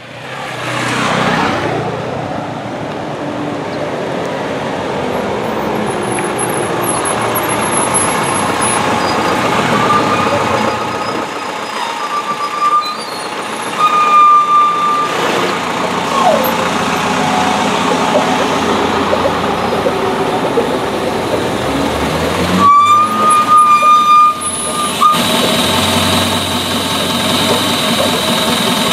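Heavy road traffic running, fading in at the start, with short horn blasts around the middle and again about three-quarters of the way through.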